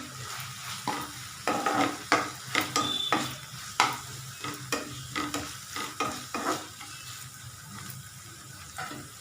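A spoon stirring and scraping spring-roll filling in a pan over a light sizzle, about two strokes a second. The strokes stop about two-thirds of the way through.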